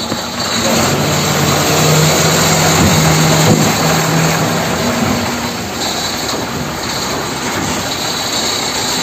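Steady engine-like running noise: a dense, even hiss with a faint low hum underneath.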